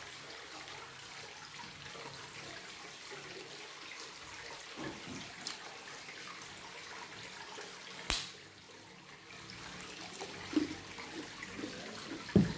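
Close-up eating sounds over a steady hiss: chewing, with one sharp crack about eight seconds in and a low thump near the end.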